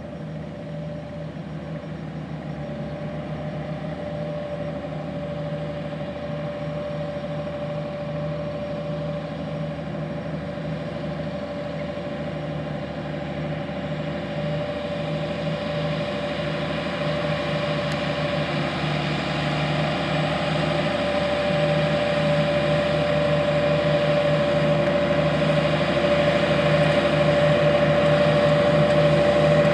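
New Holland T9.450 four-wheel-drive tractor's six-cylinder diesel engine running steadily under load, pulling an anhydrous ammonia side-dress toolbar, with a steady whine through it. It grows louder as the tractor comes closer.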